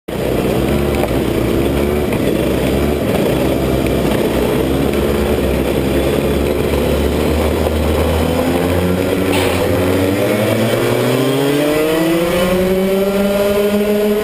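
Rotax Max 125cc two-stroke kart engines running at low revs in a pack, then revving up with a rising pitch from about ten seconds in as the karts accelerate away.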